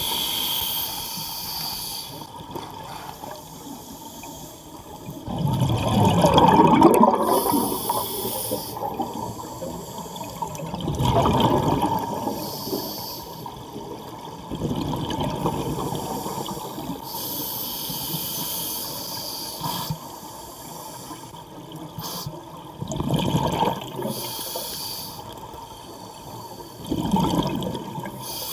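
A diver breathing through a scuba regulator underwater: a hiss on each inhalation, then a louder rush of exhaled bubbles, in a slow cycle every five or six seconds.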